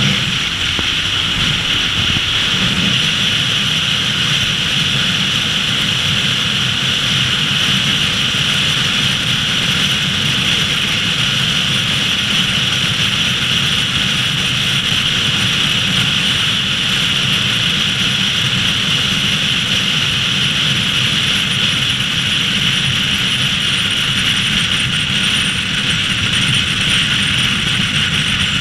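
Steady rush of wind and road noise from a car cruising at highway speed, with wind pressing on a microphone mounted outside the car.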